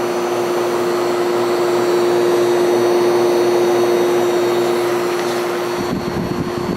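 A 1973 Whirlpool window air conditioner with its cover off, running: a steady rush of fan air over the steady hum of its Seeger rotary compressor. The hum drops away near the end, and some low rumbling follows.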